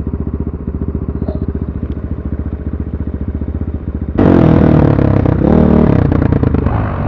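Motorcycle engine idling with a steady, rapid putter, then about four seconds in it is suddenly revved up loudly, its pitch rising and falling.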